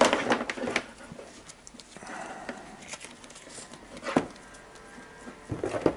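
Handling noises from working a cable and plug by hand: a quick run of small clicks at the start, soft rustling, a single sharp knock about four seconds in and another short cluster of clicks near the end.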